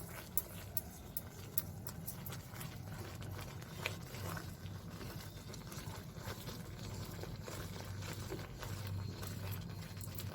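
A spatula stirring a thick, sticky ginger-and-jaggery paste in a pan, with irregular clicks and scrapes against the pan that are most frequent in the first few seconds. A faint, steady low hum runs underneath.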